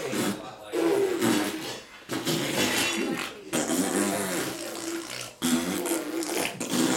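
Funny wordless vocal noises from a grandfather and a baby playing together: a run of pitched, bending sounds mixed with noisy, sputtering mouth sounds, broken by short pauses.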